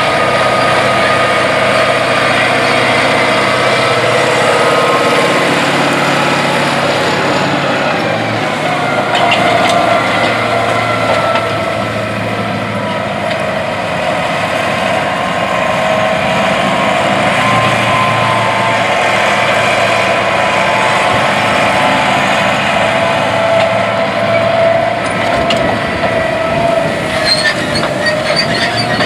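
White 4-225 Field Boss tractor's Caterpillar 3208T turbocharged V8 diesel working under load, pulling an 11-shank chisel-plow mulch tiller through cornstalks. The engine runs steadily with a high whine that wavers in pitch.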